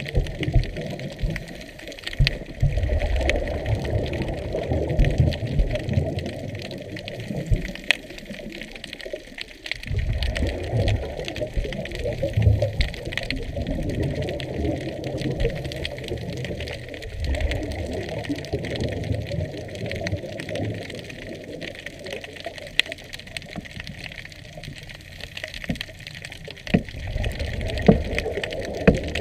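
Underwater sound through a camera housing: scuba regulator exhaust bubbles rumbling and gurgling in bursts of several seconds, with a pause of about two seconds in the middle, and scattered sharp clicks throughout.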